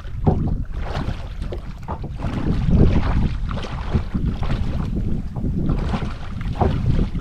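Wind gusting on the microphone over shallow lake water. Scattered small splashes come from a man wading and throwing a cast net.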